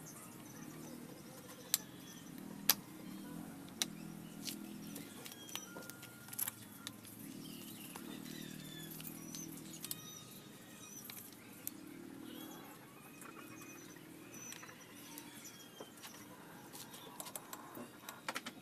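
Scattered sharp metal clicks and clinks from a motorcycle swing arm and its pivot bolt being handled and fitted, over a low steady background sound, with faint bird chirps.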